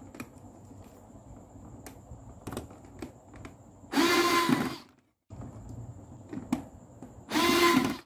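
Cordless drill-driver running in two short bursts, each under a second, about four seconds in and again near the end, driving the clamp screws of a neutral terminal bar down onto the wires. A few light clicks of wires and handling come between the bursts.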